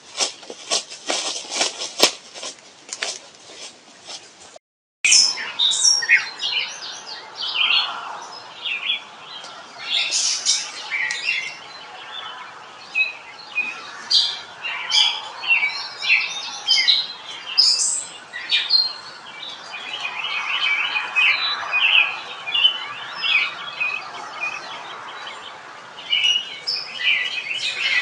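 Wild birds chirping and calling, many short overlapping calls. In the first few seconds there is instead a quick run of sharp clicks or rustles, broken off by a short silence.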